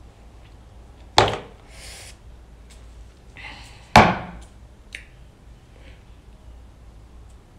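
Two sharp knocks about three seconds apart, like hard objects set down or struck on a hard surface, with brief hissing between them.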